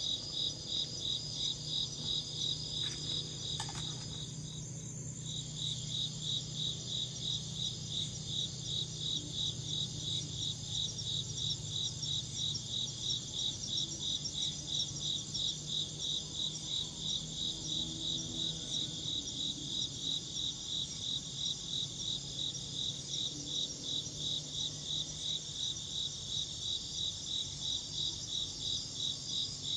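Crickets chirping in a fast, even rhythm of about three chirps a second, with a higher, fainter insect trill running steadily behind. The chirping breaks off for about a second, four seconds in, then resumes.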